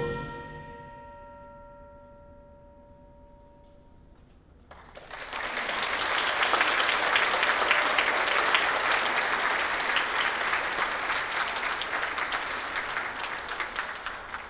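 The final chord of a concert band dies away, its held tones ringing on in the hall for a few seconds. From about five seconds in, an audience applauds, thinning out near the end.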